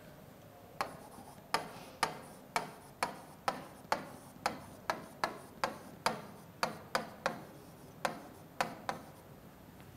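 Whiteboard marker tapping against the board while writing: a string of sharp, unevenly spaced taps, roughly two a second, stopping about a second before the end.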